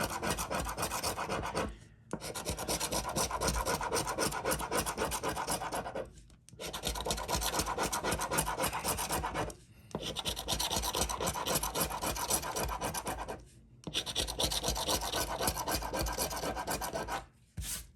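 Scratch-off lottery ticket being scratched: fast rasping strokes across the card's latex coating, in stretches of about four seconds with short pauses between them.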